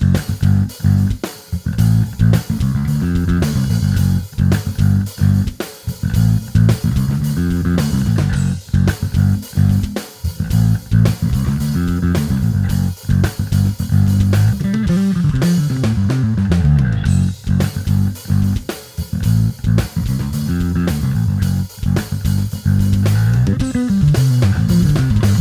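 Electric bass guitar played through a Darkglass Microtubes 900 V2 bass amp head: a fast riff of short, choppy notes with brief stops between phrases.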